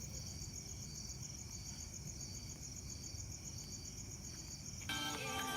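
Crickets chirping in a steady, evenly pulsing high trill over faint low background noise. Near the end, music starts up, louder than the crickets.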